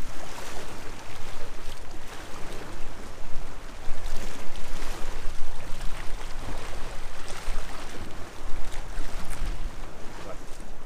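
Sea washing against the shore with wind rumbling on the microphone: a steady, rough noise that swells and eases.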